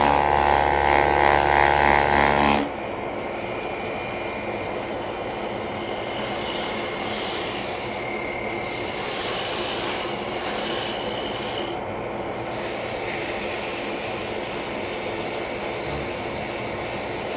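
Hand sanding on a running wood lathe: a foam-backed 120-grit sanding pad rubs along a spinning wooden spindle with a steady, even rasping hiss. A louder steady hum is heard over it for the first two or three seconds and stops abruptly.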